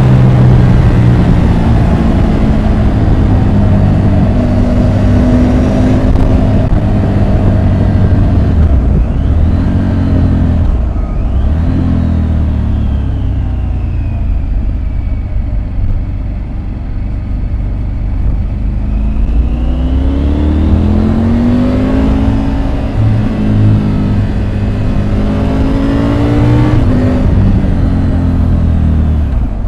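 Triumph Tiger 850 Sport's three-cylinder engine heard from the rider's seat, revving up and down through gear changes: a quick dip in revs about eleven seconds in, then a long easing-off over several seconds before it climbs hard again.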